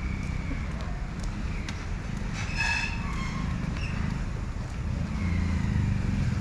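Low rumble of road traffic, growing louder near the end as a vehicle draws near, with a short high-pitched tone about two and a half seconds in.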